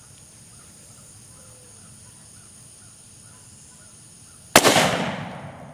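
A single shot from a .44 Uberti 1847 Walker cap-and-ball revolver loaded with birdshot over a 25-grain black-powder charge, sharp and loud, about four and a half seconds in, its echo dying away over a second or so.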